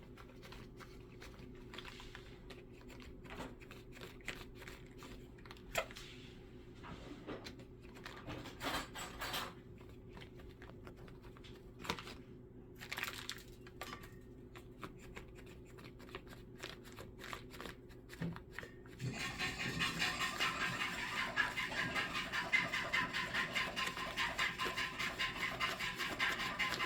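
A pet chicken eating, with scattered sharp pecking clicks and a few short louder sounds. About two-thirds in, this gives way to a louder, fast, even run of clicking, likened to the Tin Man creaking.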